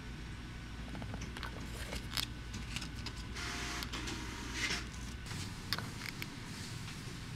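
Pages of a paperback book rustling as they are turned, with a few small clicks and knocks over a steady low hum.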